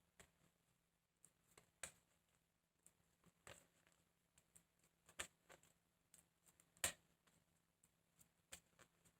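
Near silence: room tone with a few faint, irregular clicks and taps, the loudest about seven seconds in.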